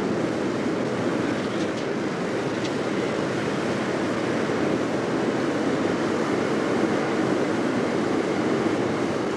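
Steady, even rushing noise of an aircraft cabin in flight, heard on an old recording of a conversation.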